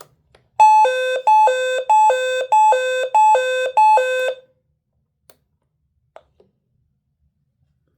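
Weather alert radio sounding its siren test: a loud two-tone alarm alternating high and low about six times, cutting off after about four seconds.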